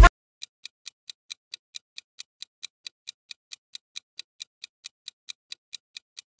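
Countdown-timer sound effect ticking like a clock, a short, even tick about four to five times a second, marking the seconds of a quiz answer countdown.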